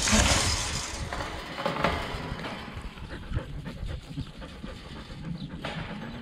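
Kelpie sheepdog panting as it runs after a flock of sheep, heard close up through a GoPro strapped to the dog, with rubbing and light knocks from the camera mount. The panting is loudest in the first second, then fades to quieter rustling and knocks.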